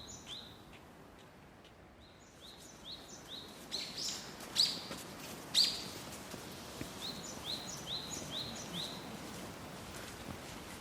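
A bird calling in runs of short rising chirps, about three a second, four or five to a run, repeated several times. Two louder, sharper calls come about halfway through, over a faint steady outdoor background.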